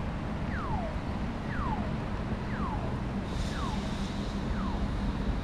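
A pedestrian crossing's audible signal giving a falling electronic chirp about once a second, over steady street traffic. A short hiss with a faint high tone cuts in about three seconds in.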